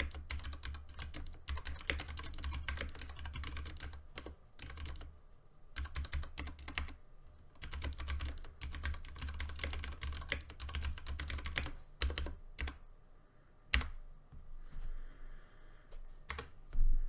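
Ducky One 2 Mini keyboard with Cherry MX Brown switches typed on in fast bursts of keystrokes. It sits on a mouse pad, which muffles the keystrokes a little. There is a short pause about a quarter of the way in, a sparser stretch after about two-thirds, and one sharp, louder knock near the end.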